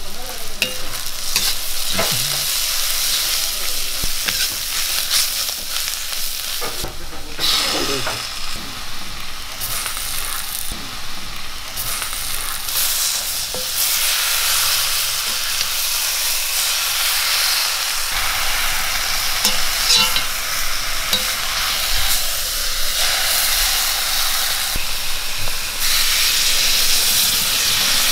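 Onions with spices, and later marinated chicken pieces, sizzling and frying in oil in a black kadai, with a metal spoon stirring and scraping and now and then clicking against the pan.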